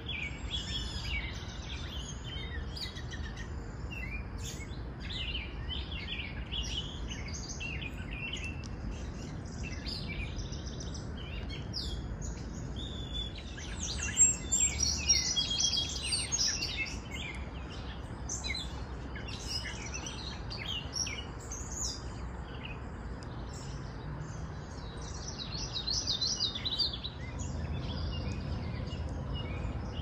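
Several songbirds sing and call over one another in a continuous chorus of short chirps and trills. A louder, busier burst of song comes about halfway through, and another near the end. A low, steady rumble runs underneath.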